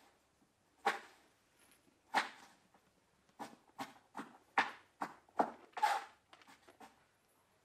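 A dancer's feet and body moving on the floor: irregular short scuffs and light thumps, sparse at first, then coming faster from about three seconds in.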